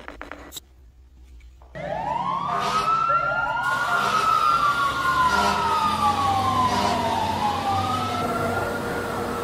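A wailing siren sound comes in about two seconds in: several rising and falling sweeps overlapping one another over a low hum. A couple of faint clicks come just before it.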